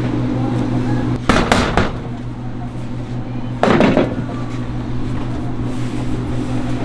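Large loaves of bread handled on a stainless-steel worktable: a quick cluster of knocks about a second in and a brief, louder bump-and-rustle a little past the middle as a loaf is lifted, over a steady low hum.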